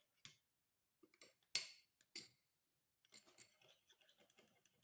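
A spoon stirring a honey mixture in a container, faintly: a few separate clicks against the side in the first half, then a quicker run of small clicks and scrapes from about three seconds in.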